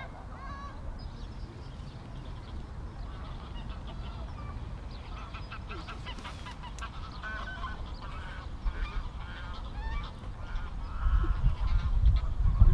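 Geese honking, scattered calls at first and a denser run of them through the middle, over a steady low rumble of wind on the microphone.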